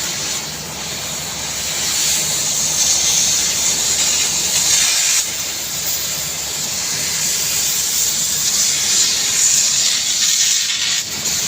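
A loud, steady hiss, strongest in the high range, over a faint low machine hum; it dips briefly about five seconds in.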